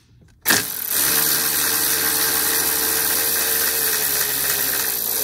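Cordless power tool running steadily with a 10 mm deep socket, spinning the inboard nut off a clutch-cover stud; it starts about half a second in with a steady whirr.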